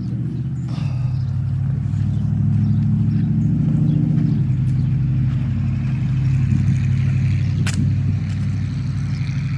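A motor vehicle engine running steadily, its pitch shifting slightly about halfway through. A single sharp click comes about three-quarters of the way in.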